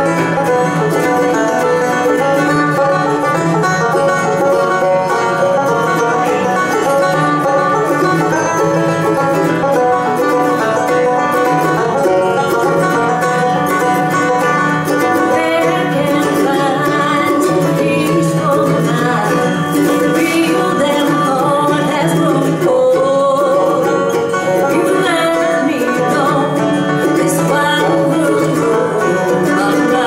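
Acoustic bluegrass band playing a song: picked banjo, mandolin and acoustic guitar, with a woman singing.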